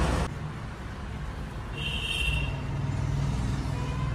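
A motor vehicle engine running steadily, heard as a low hum that swells slightly after about two seconds, with a brief high squeal about two seconds in.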